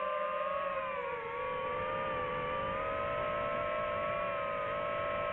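DJI FPV quadcopter's motors and propellers whining steadily in flight, several slightly different pitches beating together, with a brief dip in pitch about a second in.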